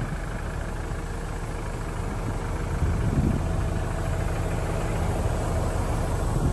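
Toyota Hilux engine idling steadily, a low, even running sound.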